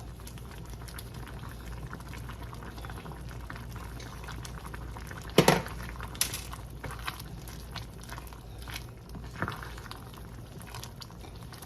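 Pot of chicken and dumplings bubbling steadily on the stove with the heat turned down a little. A single sharp knock about five and a half seconds in.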